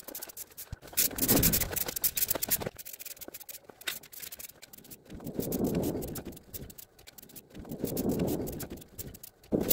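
A Krylon aerosol spray-paint can being shaken, its mixing ball rattling for a couple of seconds, then two hisses of spraying, each a little over a second long, as paint goes onto the foam fuselage.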